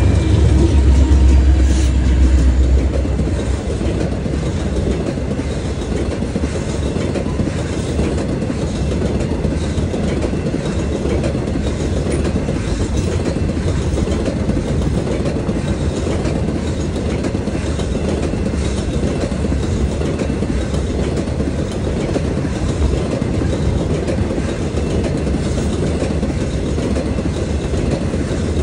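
Diesel freight locomotive rumbling past for the first few seconds. It is followed by the steady rattle and clatter of empty open-top hopper cars rolling by on the rails.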